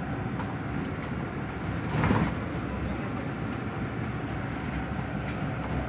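Airport apron shuttle bus driving, a steady run of engine and road noise heard from inside the cabin, with a brief louder knock about two seconds in.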